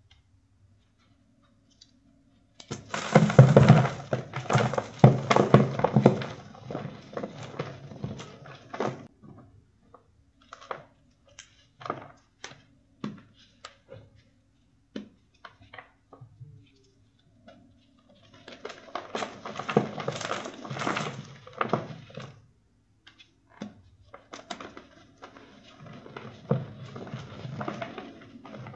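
Crunchy charcoal reforms (re-formed chalk blocks) being crushed: three long runs of dense crackling crunches, the first about six seconds long, with single sharp cracks scattered between.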